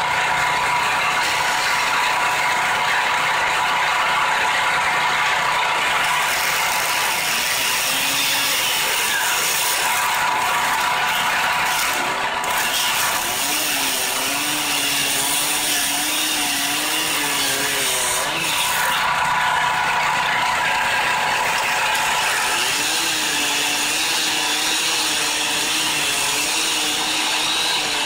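Two-stroke chainsaw running and cutting into a stubborn log wedged on a log splitter. Its engine note wavers up and down in the cut, twice for several seconds.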